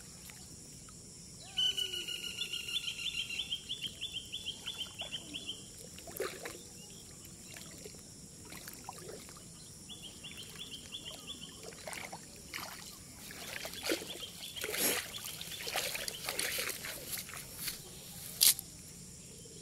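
Water sloshing and dripping as a wet cast net is gathered and hauled out of a shallow, weed-choked flooded field, heaviest in the last few seconds, with one sharp knock near the end. A rapid, high, repeated call sounds twice, over a steady high insect drone.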